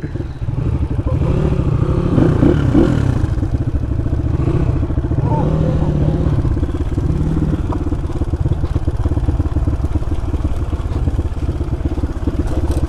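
Dirt bike engine running steadily at a fairly even speed while the bike rolls down a rough, narrow dirt path, with a few sharp clicks near the end.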